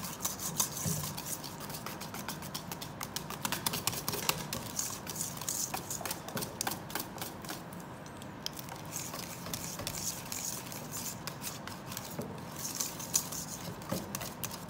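Wire balloon whisk beating a thick labneh and cream cheese mixture in a stainless steel bowl: the wires tick and scrape rapidly against the metal, with a brief lull about halfway through.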